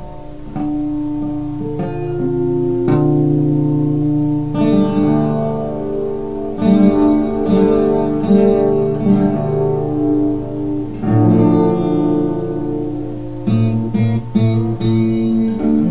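Acoustic guitar played fingerstyle, plucked melody notes ringing on over bass notes.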